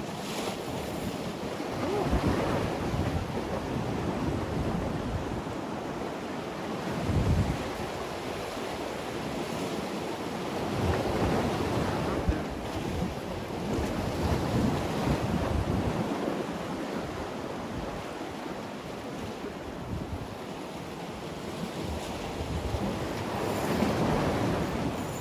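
Sea waves washing against the concrete blocks and rocks of a breakwater, swelling and falling back every few seconds, with wind buffeting the microphone.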